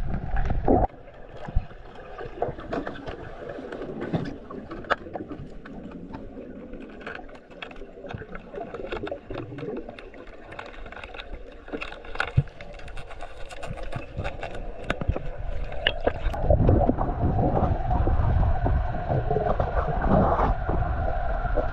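Muffled sound recorded underwater. A low rumble cuts off within the first second. A quieter stretch follows, full of scattered sharp clicks and crackles. The low rumble returns with a steady hum about three-quarters of the way in.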